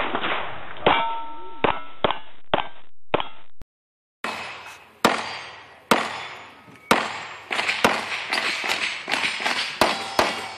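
Pistol shots fired at steel plate targets, the hit plates ringing with a metallic clang. About five shots come in the first three seconds, then after a short break the shots resume, widely spaced at first and then in a fast string near the end, each with a sharp crack and an echo.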